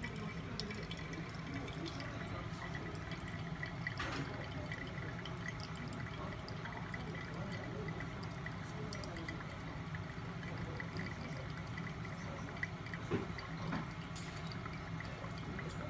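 A thin stream of hot water poured from a gooseneck kettle onto wet coffee grounds in the paper filter of a TORCH ceramic pour-over dripper, with coffee dripping into a glass server below. The pour is steady, with a couple of light knocks.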